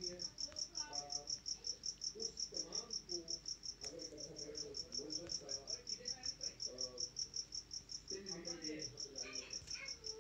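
A cricket chirping in a steady run of rapid, even chirps, about five a second, high-pitched, with faint voices underneath.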